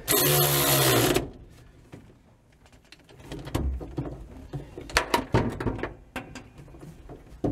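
Cordless electric ratchet running for about a second as it drives down a pedal bolt, followed by scattered clicks and metal clinks as the tool and hardware are handled.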